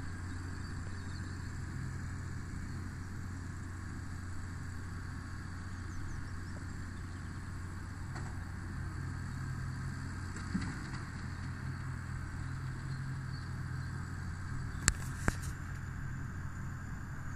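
Massey Ferguson 6465 tractor working with a Vicon RF 2235 round baler at a distance, a low, even engine drone. About fifteen seconds in, two sharp clicks a fraction of a second apart are the loudest sounds.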